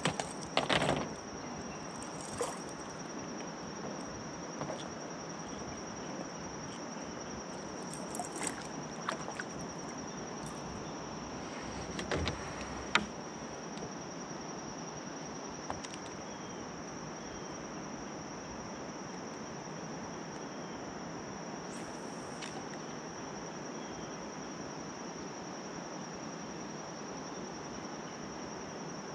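Steady, high, slightly pulsing drone of insects singing in the riverside trees, over a soft even hiss. In the first half there are a few short knocks and clicks from gear being handled in a kayak.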